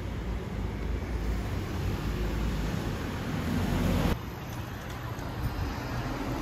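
Street traffic: cars driving past close by, one growing louder over a couple of seconds before the sound cuts off suddenly about four seconds in, leaving quieter, steady street noise.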